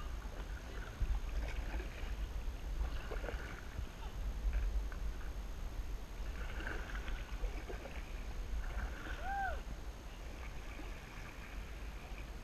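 Kayak paddle strokes dipping and splashing in shallow water, a soft splash every second or two over a steady low rumble. A single short chirp sounds about nine seconds in.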